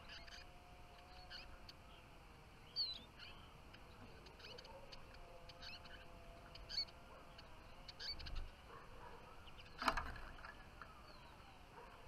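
Eurasian siskins giving short, high chirps at scattered moments around a wooden trap cage, with a faint steady hum underneath. A sharp knock sounds about ten seconds in.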